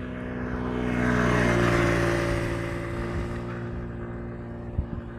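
A motor vehicle passing by. Its engine hum swells to a peak about a second and a half in, then fades as its pitch drops.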